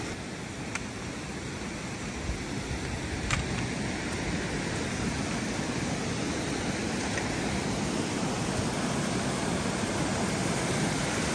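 Mountain stream rushing over rocks in small cascades: a steady rush of water that grows a little louder, with a few faint clicks near the start.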